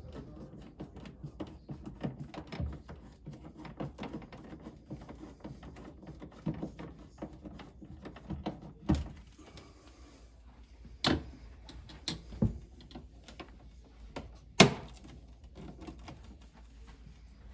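Clicks and knocks of hard plastic parts being handled and fitted while a refrigerator's water filter housing assembly is installed. A few sharper knocks come in the second half, the loudest a little before the end.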